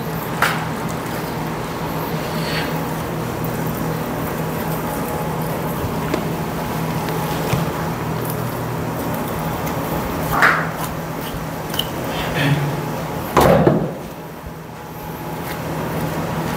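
A boning knife working through a pork carcass on a butcher's table: a few short knocks and scrapes, the loudest about three-quarters of the way through, over a steady background hum.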